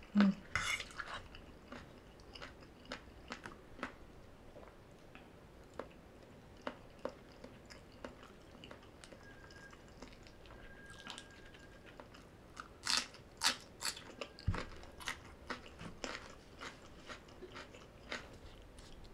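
Close-miked chewing of a mouthful of green papaya salad: crisp crunches over a quiet background, with a louder run of crunching about thirteen seconds in.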